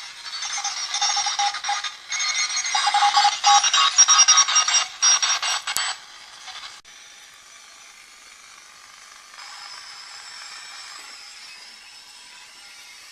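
Tesla 563A tube radio's loudspeaker giving out strange off-air signals: a loud jumble of steady whistling tones and crackling clicks for about six seconds, then the sound drops suddenly to a faint hiss with thin whistles.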